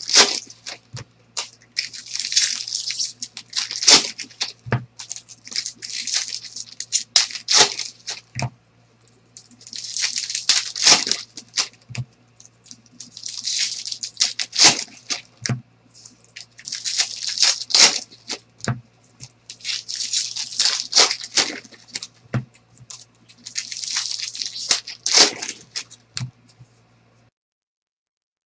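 Foil trading-card pack wrappers being torn open and crinkled, one pack after another, in about ten crackly bursts a couple of seconds apart, over a steady low electrical hum. The sound cuts out near the end.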